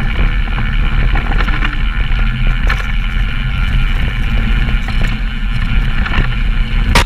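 Downhill mountain bike running down a dirt trail, heard through cameras mounted on bike and rider: wind buffeting the microphones over tyre noise and the bike's rattle, with several knocks from bumps and one loud, sharp knock near the end.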